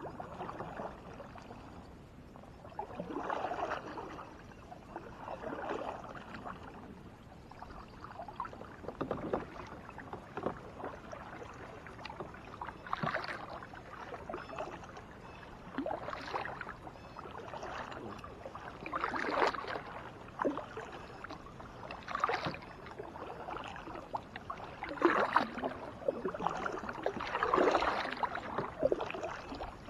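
Double-bladed kayak paddle stroking through the water, each blade's dip and pull making a swishing splash about every three seconds.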